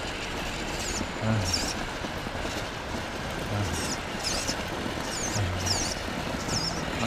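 Electric drive of a G*Made R1 1/10-scale RC rock crawler working in short bursts of throttle as it crawls up bare rock. There are several brief high whines that wobble in pitch, and a few short low hums.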